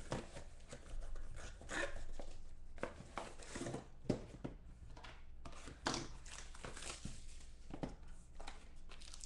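Plastic wrap crinkling and tearing as a trading-card box is unwrapped by hand, with scattered sharp taps and knocks of cardboard.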